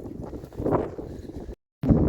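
Wind buffeting the microphone outdoors, with footsteps on the track. The sound cuts out completely for a moment near the end.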